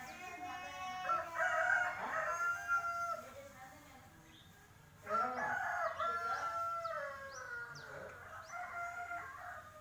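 A rooster crowing twice, about five seconds apart, each crow a few seconds long, with a few faint, quick high chirps from a small bird.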